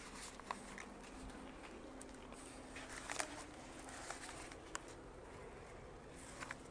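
Faint factory workshop background noise with a low steady hum and scattered light clicks and metallic knocks, the sharpest about three seconds in.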